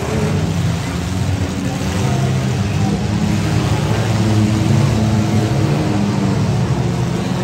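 Several compact cars' engines running and revving together, a dense, steady engine noise from the pack of derby cars pushing against each other.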